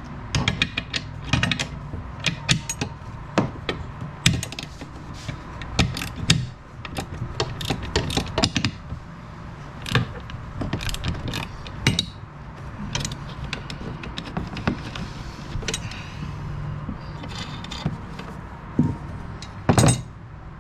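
Metal parts and hand tools clinking, tapping and knocking in irregular bursts, some strikes with a short metallic ring, as shifter linkage hardware is handled and fitted, over a steady low hum.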